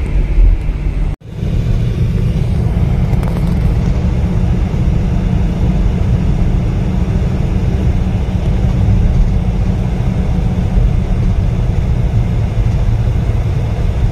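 Steady low rumble of a Volvo sleeper coach driving, with engine and road noise heard from inside the cabin. The sound drops out for an instant about a second in, then carries on unchanged.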